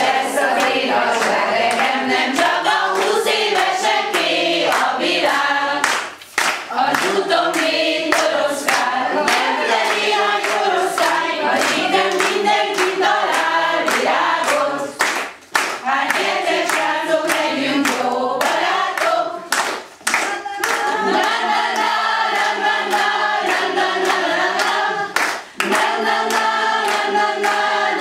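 A group of women singing a song together without accompaniment, with hand claps running through the singing. The singing breaks off briefly between phrases three or four times.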